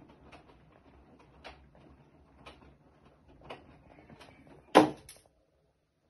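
Bosch front-loading washing machine tumbling a wet load of laundry, with a low hum and soft thuds about once a second as the clothes drop in the drum. Near the end comes one loud, sharp knock, and then the machine goes almost silent as the drum stops.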